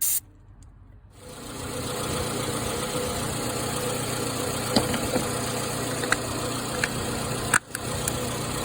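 A short hiss of contact-cleaner spray at the start, then a car engine coming in about a second later and idling steadily, with a few light clicks; the car runs now that the loose, oxidised positive battery terminal has been replaced.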